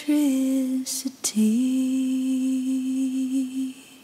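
A single voice humming or singing long held notes, wordless, gliding slowly down from one note to the next; after a short break and a click a little over a second in, it slides up into one note held for over two seconds, then stops near the end.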